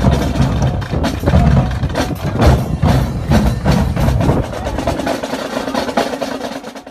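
Marching drumline of snare drums, bass drums and cymbals playing a steady rhythmic beat, dying away over the last two seconds.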